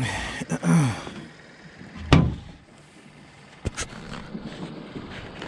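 A short sigh-like vocal sound in the first second, then one heavy thump about two seconds in and a lighter click a little later.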